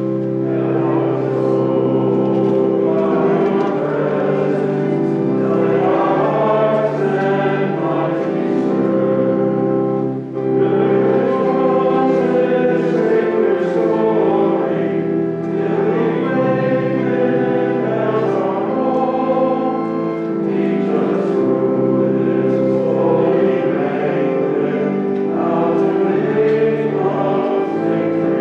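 Choir singing a hymn over held accompanying chords, with a short break about ten seconds in.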